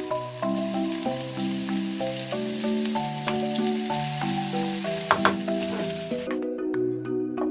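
Minced meat and mushrooms sizzling in a frying pan as they are stirred, with a couple of sharp scrapes or knocks about five seconds in. The sizzle cuts off suddenly about six seconds in.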